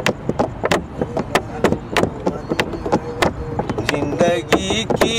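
A man singing a Hindi film song without instruments, kept in time by a quick run of sharp percussive beats. For the first few seconds only the beats are heard; the singing voice comes back in about four seconds in.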